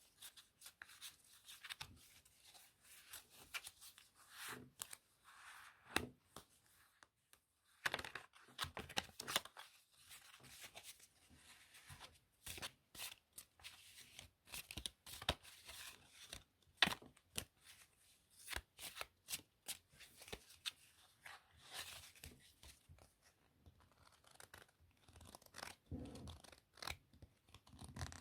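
Playing cards being handled close to the microphone: irregular crisp clicks, snaps and short papery rustles of card edges sliding and tapping.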